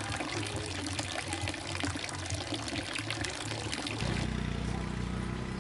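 A stream of water pouring from a plastic pipe into a plastic basin full of water, splashing steadily. About four seconds in the splashing fades and a low steady hum takes over.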